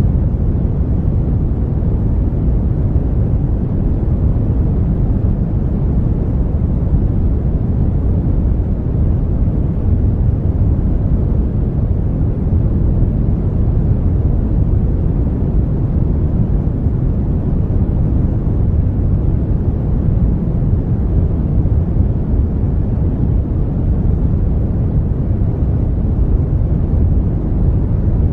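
Brown noise: a steady, even, deep rumbling hiss with most of its energy in the low end, unchanging throughout.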